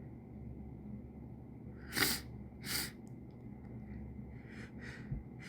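A person sniffing sharply twice, about two seconds in and again a moment later, then fainter catching breaths near the end: the build-up of breath before a sneeze.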